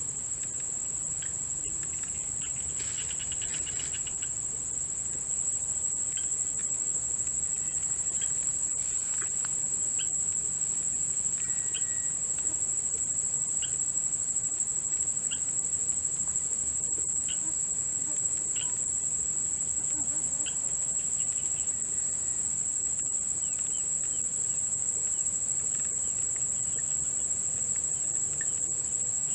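Steady, high-pitched continuous trilling of crickets, with scattered short, faint chirps from other small animals.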